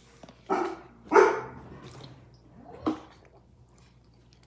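A dog barking three times in the room: a first bark about half a second in, a louder one about a second in, and a weaker one near three seconds.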